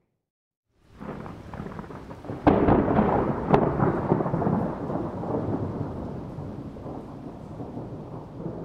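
Thunder with rain: the storm noise begins about a second in, a sharp crack comes about two and a half seconds in and another a second later, then a long rolling rumble slowly fades.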